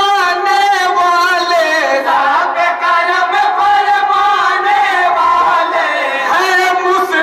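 A group of men singing an Urdu naat together into a microphone, drawing out long notes that slowly rise and fall in pitch.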